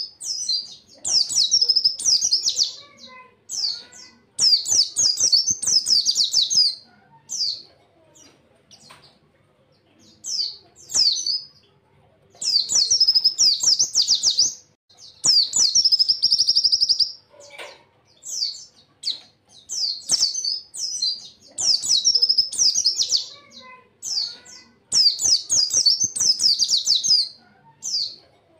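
A pleci (white-eye) singing its rapid, high, twittering song in bouts of one to two seconds, repeated after short pauses. These are the song bursts that fanciers call 'tembakan'.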